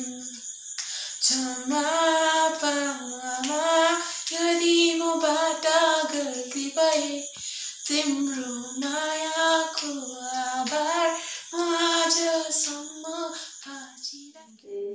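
A boy singing a Nepali song unaccompanied, in long held notes that waver and slide, phrase by phrase with short breaths between. The singing trails off near the end.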